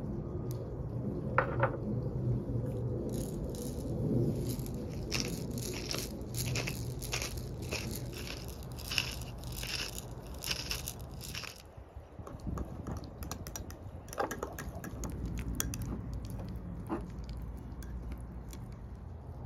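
A pepper mill grinding whole black peppercorns, a dense run of crunchy clicks from about three seconds in that stops near twelve seconds. After it come scattered scrapes and taps of a spatula stirring a marinade paste in a glass bowl.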